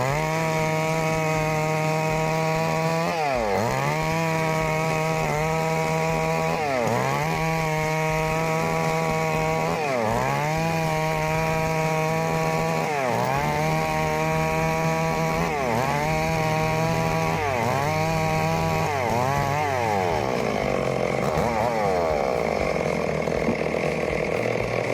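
Chainsaw engine running at high revs, its note repeatedly dipping sharply in pitch and climbing straight back every second or two while cutting planks from a log. From about twenty seconds in, the note turns rougher and less steady.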